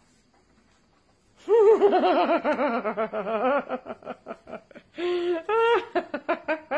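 A person laughing: after about a second and a half of quiet, a long high warbling laugh, then short breathy giggling pulses and higher laughing sounds near the end.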